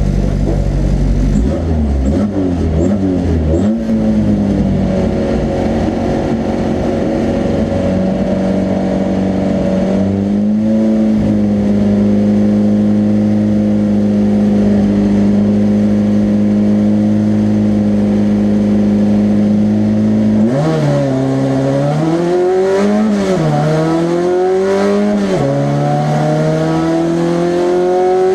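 Racing car engine of a 1300-class car at high revs, held steady for about ten seconds. About twenty seconds in the revs drop sharply, dip and surge a couple of times as it slows and shifts, then climb steadily as it accelerates again.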